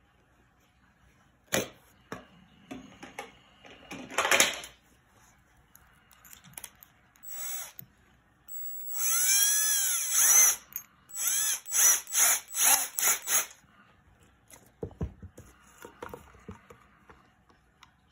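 Cordless drill with a keyless chuck being run in short bursts while a twist bit is fitted: the motor spins up and winds down once for about a second and a half, then gives about five quick trigger pulses, with the chuck clicking as it tightens on the bit. A few clicks and knocks of handling come before.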